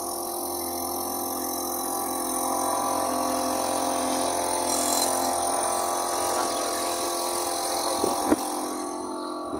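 Small motorboat engine running steadily at low speed, its note a little louder in the middle, with a couple of short knocks near the end.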